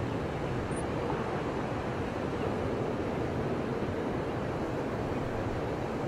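Ocean surf breaking and washing up a beach: a steady, even rush of waves.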